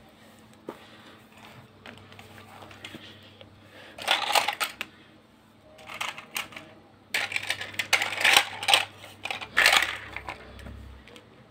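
Plastic toy animals, toy cars and building blocks clattering and knocking against each other as they are handled and shuffled around, in bursts of clicks and rattles about four seconds in, around six seconds, and most of all from about seven to ten seconds in.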